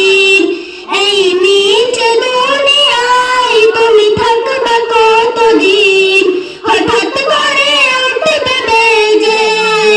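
A child singing a Bengali song solo in a high voice, holding long, wavering, ornamented notes. The singing breaks briefly about half a second in and again near seven seconds in.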